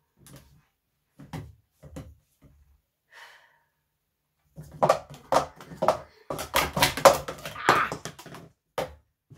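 A few light taps, then about four seconds of rapid clattering as plastic sport-stacking cups are stacked up and down on a stacking mat in a timed run, ending with one last click.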